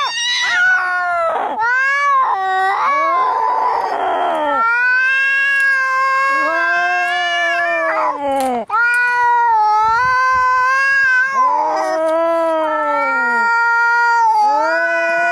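Cats caterwauling in a fight: long, drawn-out yowls that waver and bend in pitch, one after another. A hiss breaks in about three to four seconds in.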